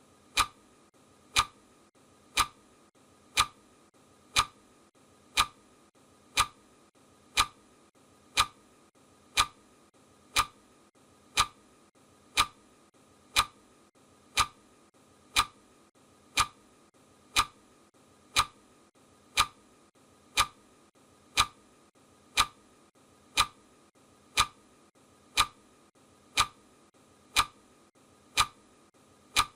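Clock ticking steadily, one sharp tick each second, counting down the seconds of a countdown timer.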